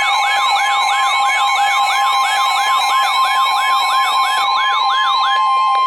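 NOAA Weather Radio warning alarm: a loud steady 1050 Hz attention tone with a rapidly repeating sweeping siren-like tone over it, about two and a half sweeps a second. It signals that a weather warning is about to be read. The sweeps stop shortly before the steady tone cuts off.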